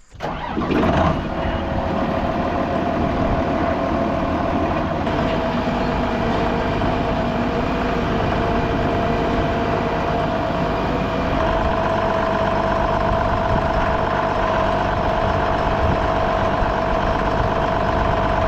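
John Deere 7405 tractor running steadily with a constant whine over the engine, driving on a corn silage pile to pack it. The whine gets a little stronger about two-thirds of the way through.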